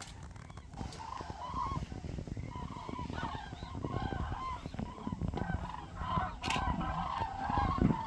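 A flock of common cranes calling in flight: many overlapping trumpeting calls that start about a second in and come thicker toward the end.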